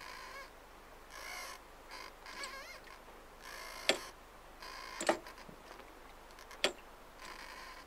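Junk rig's rigging and wooden yard creaking as the boat moves: a string of short creaks about once a second, some wavering in pitch, with three sharp knocks in the second half.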